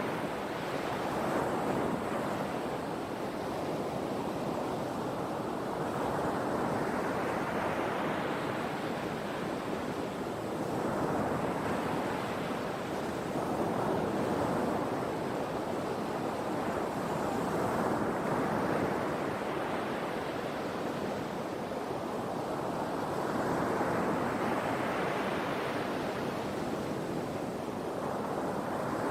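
Ocean surf: waves breaking one after another, each swelling up and washing away over a few seconds, about every six seconds.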